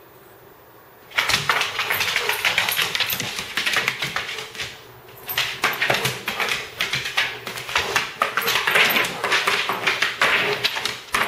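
A dog's claws clicking and scrabbling rapidly on a hardwood floor as it chases a laser dot, starting about a second in, with a brief lull near the middle.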